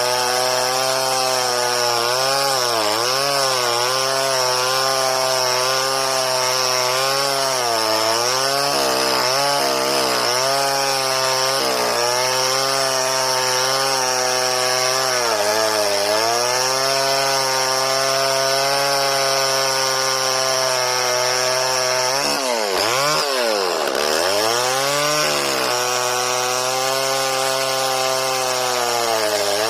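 Homelite Super 2 two-stroke chainsaw running under load, cutting wood. The engine speed sags and recovers over and over, with one deep bog about three quarters of the way through, and a steady high whine rides on top. The owner thinks he sharpened the chain badly.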